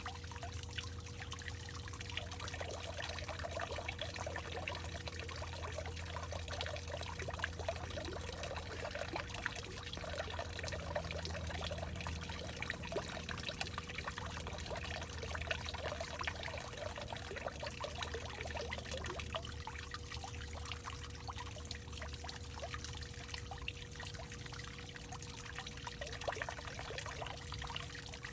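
Water pouring and trickling steadily in a hollowed-out tree, a dense, even patter of small splashes, over a faint low hum.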